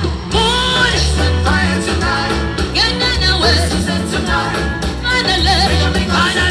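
Live band music with a singer's melody over a steady deep bass line.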